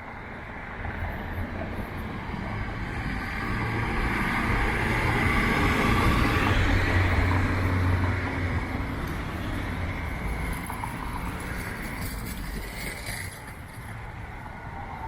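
A road vehicle passing on a city street, its engine hum and tyre noise building over several seconds, loudest in the middle, then fading away.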